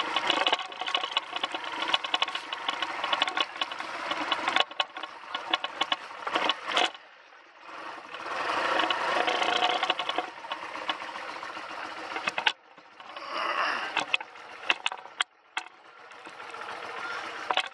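A 1991 BMW R100GS Paris-Dakar's air-cooled boxer twin running at low speed with a fast ticking beat and rattles from the bike on rough ground, then settling as the bike stops. The sound drops away briefly a few times, and there are several sharp clicks in the second half.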